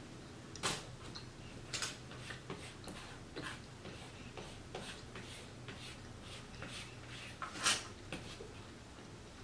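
Close-miked chewing and wet mouth clicks from someone eating tender stewed beef and garlic naan: irregular soft smacks and clicks, with louder ones about a second in and near the end.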